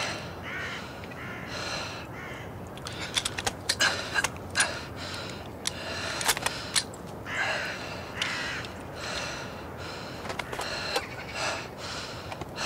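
Crows cawing over and over, in short calls about every half second. Between roughly three and seven seconds in come a few sharp clicks and knocks, the loudest sounds here.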